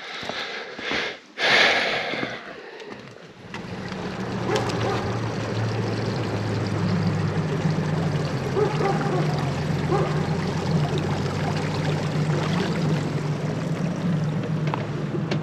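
A few short, loud splashing bursts, then a boat engine comes in about three and a half seconds in and runs at a steady hum with water noise over it.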